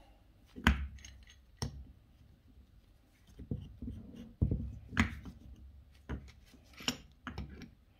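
Ribbed pulley puller being fitted by hand onto an AC compressor pulley: a handful of sharp metal clacks and knocks a second or two apart as its jaws and bar are set in place.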